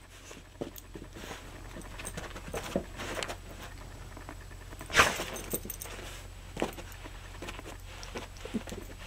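Portuguese Water Dog moving on carpet: her metal collar tag clinking and paws padding, with scattered light clicks and one sharp click about five seconds in.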